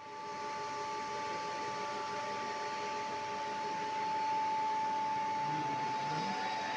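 CNC machine running steadily: a constant high whine over an even hiss, fading in at the start and holding level.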